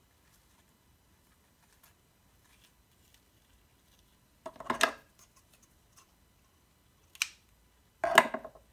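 Short sharp cutting and clattering noises of a kitchen knife on a wooden chopping board as the centres are cut from courgette flowers: two louder bursts, about halfway through and near the end, with a single click between.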